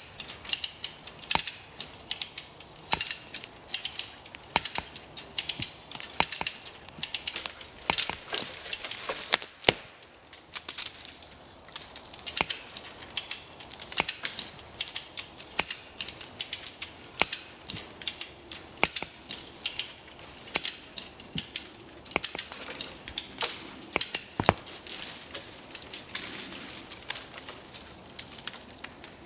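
Hand ratchet winch on a cable line clicking and clattering as its handle is pumped back and forth, a burst of pawl clicks with each stroke about once a second, tensioning the line to pull over an oak tree.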